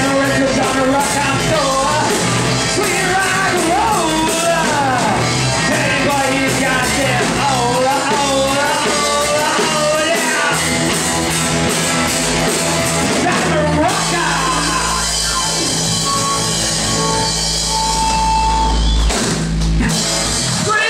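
Live rock band playing: a man singing into a microphone over electric guitar, bass guitar and drums. The singing wavers through the first half, then the band holds long steady notes toward the end.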